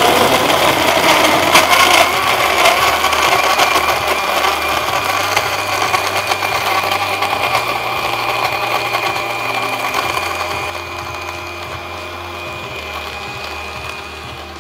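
Electric countertop blender running at speed, blending milk and ice cubes into a shake, with ice rattling and clicking against the jar in the first few seconds. It gets quieter for the last few seconds.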